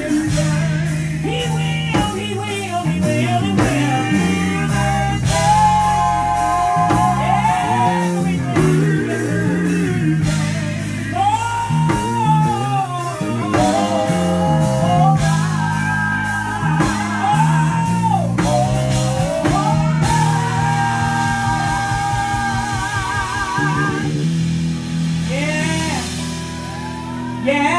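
Live gospel band playing with drums and keyboard while a male lead sings long, drawn-out runs with heavy vibrato, with few clear words.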